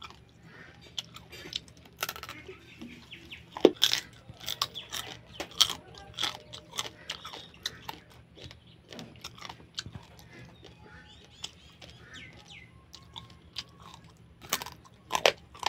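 Close-up eating sounds: crab shells crunching and cracking between the teeth, with chewing. The crunches come as irregular sharp clicks, the loudest about four seconds in and again near the end.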